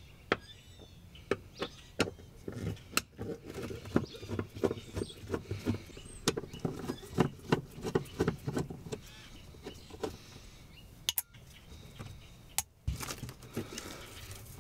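A Phillips screwdriver backing screws out of a metal fuel-pump access plate: a run of irregular clicks and light metal-on-metal scrapes, with a few sharper clicks.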